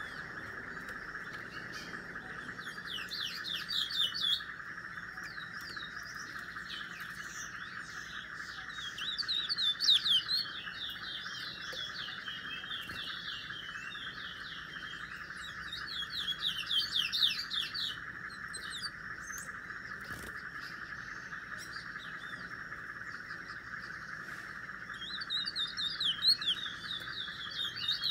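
A small caged songbird singing in four bursts of rapid, high chirping notes, each about two seconds long, with pauses of several seconds between them, over a steady background hiss.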